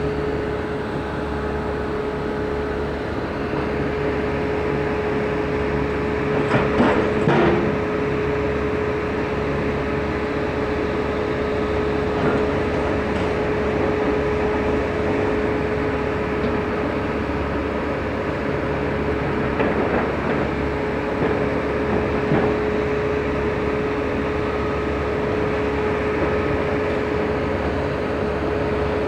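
Heavy demolition machinery running steadily with a constant hum, and a few knocks and clatters of debris, the loudest a clatter about seven seconds in.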